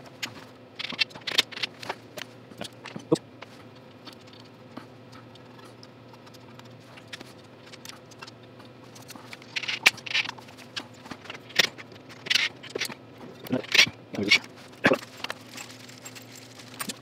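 Scattered clicks, taps and scrapes of hand tools and bolts against metal as a snowblower's replacement electric starter is bolted in place, sparse at first and busier in the second half, over a faint steady hum.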